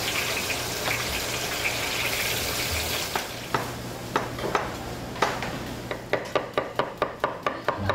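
Food sizzling in hot oil, then a knife chopping on a cutting board, the strokes coming quicker and regular, about three to four a second, from about six seconds in.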